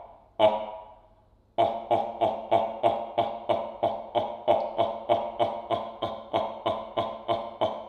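A classical singer's male voice sounding short, sharp syllables from a score transcribed from insect sounds by speech-recognition software. One note, a pause, then from about one and a half seconds in a fast, steady run of the same clipped note, about three a second, each fading quickly.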